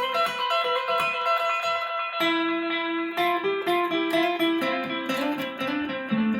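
Guitar playing picked notes over ringing held notes, with a lower melody line coming in about two seconds in, heard through a tape record-and-playback setup with standard tape deck heads and a pressure pad on the recording head.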